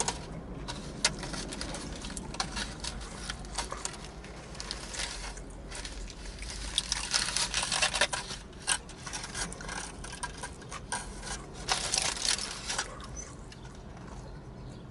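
A person eating a Philly cheesesteak sandwich: wet, squishy chewing and mouth clicks, with denser scraping and rustling handling noise about seven seconds in and again about twelve seconds in.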